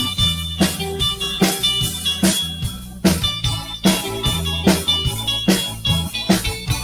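Live band playing an instrumental passage: electric guitar, bass and drum kit with a steady beat.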